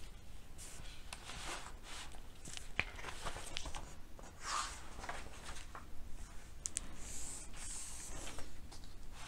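A page of a large picture book being turned by hand, then the new spread pressed flat under the hands. Soft paper rustles and light taps come and go.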